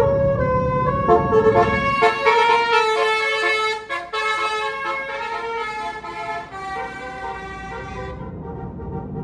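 Bus basuri telolet horn, a multi-note air horn, playing a tune of stepping notes, over the bus engine's rumble for the first two seconds. The tune stops about eight seconds in.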